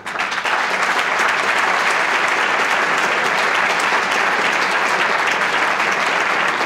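Large audience applauding: dense, steady clapping that breaks out suddenly and keeps on at full strength.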